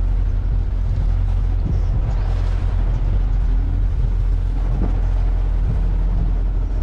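A fishing boat's engine running with a steady low drone.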